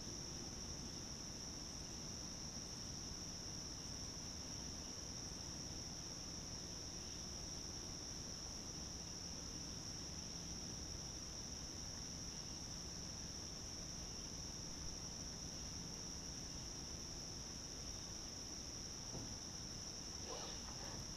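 Steady, high-pitched chorus of insects: one continuous, unbroken drone.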